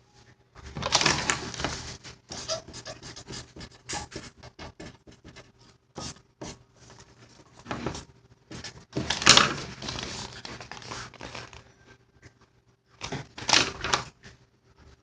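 Irregular scratching and rubbing on a surface, with louder bunches of strokes about a second in, around nine seconds in and near the end.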